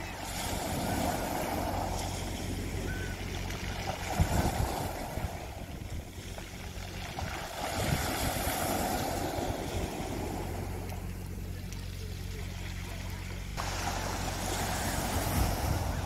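Small waves breaking and washing over a pebble beach, swelling every few seconds, with a steady low engine hum underneath and a few short knocks.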